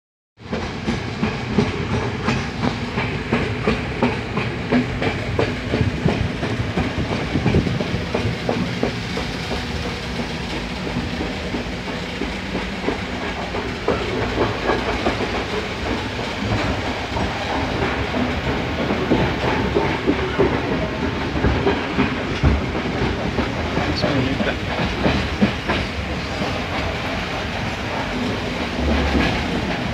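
Passenger train carriage running along the track, heard from inside a sleeper compartment: a steady rumble with frequent clattering knocks from the wheels on the rails.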